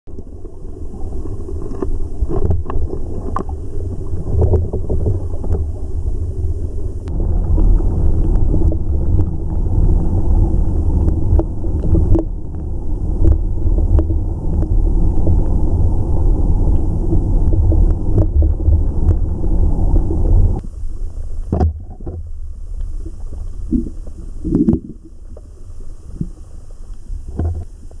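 Rushing mountain-stream water heard underwater through a submerged camera: a loud, low, muffled rumble with scattered knocks and clicks. About twenty seconds in the rumble drops away to a quieter wash, over which separate knocks stand out.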